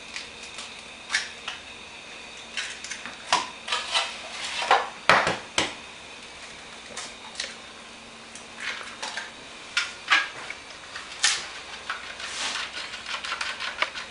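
Eggs being cracked on the rim of a bowl, with irregular sharp knocks and clinks of shell and utensils against the dish, then eggs beaten in the bowl, the utensil ticking against it in quick strokes near the end.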